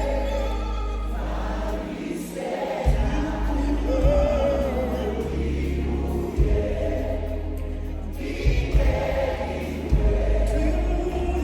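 Gospel-style music: a choir singing over a heavy bass line.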